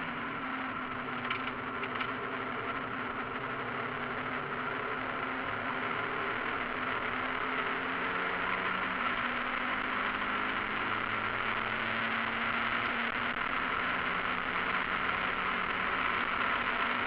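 Cockpit sound of a Mazda MX-5 race car's four-cylinder engine running steadily at speed, its pitch shifting only slowly, under a loud, even hiss of wind and spray from the wet track.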